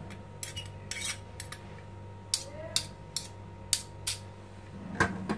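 Metal spoon clinking against a metal ladle and the glass baking dish while spooning filling onto stuffed aubergine halves, a dozen or so light clinks at uneven intervals.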